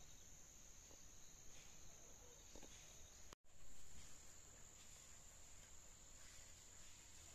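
Faint, steady high-pitched chirring of insects in rural countryside, with a few soft faint knocks and rustles. The sound drops out for a split second about three and a half seconds in, then resumes.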